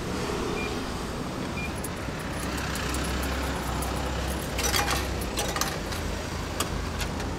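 Food vending machine dispensing a selection: two short beeps about a second apart, then the dispensing mechanism runs with a low hum and a run of clicks and knocks as the item is delivered, over street traffic.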